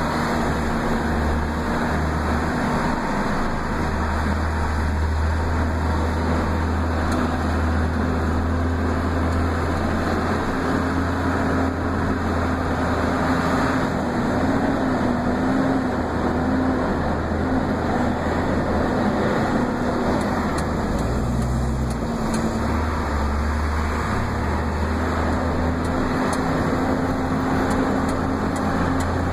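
Engine and road noise heard inside the cab of a moving heavy vehicle: a steady low engine drone with a hum over tyre and wind noise, the engine note shifting briefly about two-thirds of the way through.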